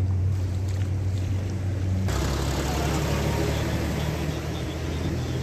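Vehicle engines with a steady low hum. About two seconds in, the sound changes abruptly to a heavier engine rumble with a rushing hiss of tyres through standing water, as trucks drive along a flooded road.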